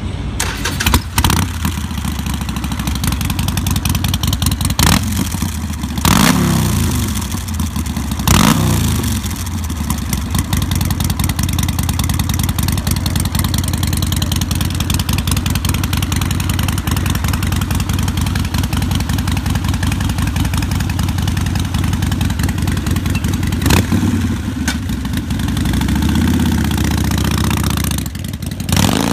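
Harley-Davidson Sportster's air-cooled V-twin idling through a Rinehart 2-into-2 cross-back exhaust, blipped in short sharp revs about a second in, around six and eight seconds in, and again several times in the last few seconds.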